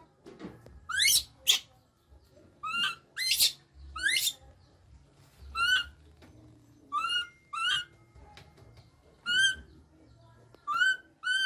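Baby macaque crying over and over: short high-pitched cries, mostly in pairs, every second or two, some rising sharply in pitch. These are the calls of an infant left on its own by its mother.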